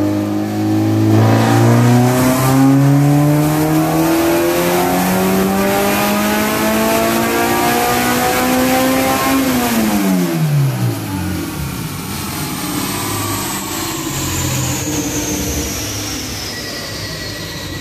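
Honda K20A3 four-cylinder engine making a full-throttle dyno pull: the revs climb steadily for about nine seconds, then the throttle closes and the revs drop quickly. The engine then runs at low revs as the car coasts down on the dyno rollers, with a thin whine falling slowly in pitch.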